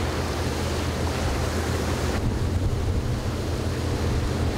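Wind buffeting the microphone over the steady rush of sea water from a boat under way, a low rumble under a wash of hiss.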